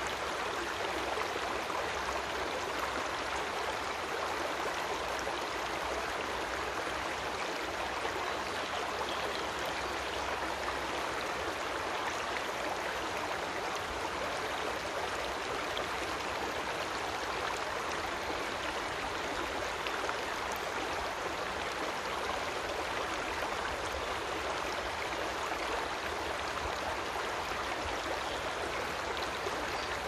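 Creek water running, a steady, even rush.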